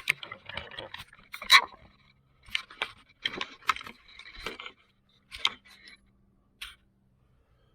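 Clinks, clicks and scrapes of small metal tools and carburetor parts being handled, with a sharp clink about a second and a half in.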